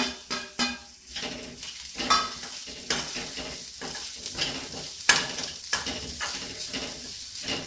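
A metal spatula stirring and scraping grated coconut, onion and red chillies frying in oil in a non-stick kadai: irregular scrapes over a steady sizzle, the sharpest scrape about five seconds in.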